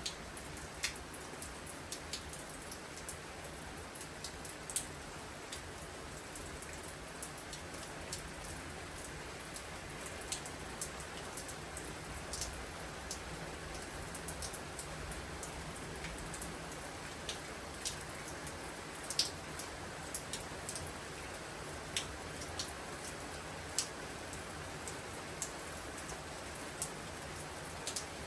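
Pouring rain with a steady hiss, and scattered sharp drops tapping at irregular intervals.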